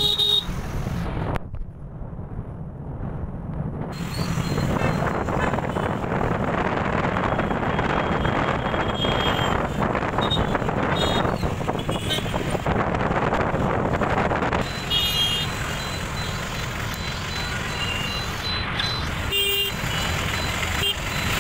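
Wind rushing over the microphone of a moving motorbike in city traffic, with engines running all around and a few short horn toots, one near the end.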